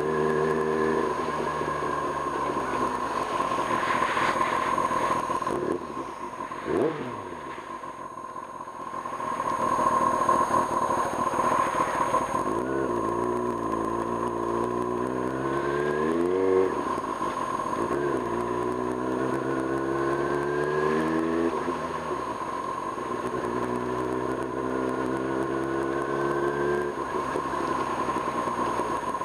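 A 1995 Kawasaki Ninja ZX-6R's inline-four engine pulling through the gears. Its pitch climbs, drops sharply at each upshift and climbs again, several times over, with a quieter, lower-revving stretch about a quarter of the way in.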